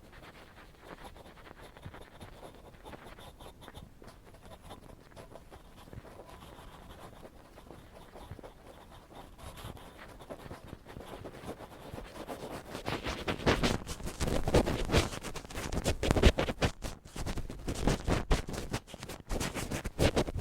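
Ear pick scratching and scraping close to the microphone for ear-cleaning ASMR. It is soft at first, then turns much louder and denser about two-thirds of the way in.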